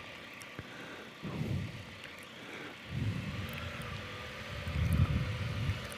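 Can-Am Spyder Sea-to-Sky's three-cylinder engine running at low revs, a quiet rumble that swells a few times.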